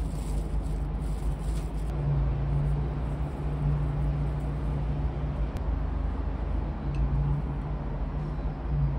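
Steady low rumble of road traffic, with a low engine hum that swells and fades several times.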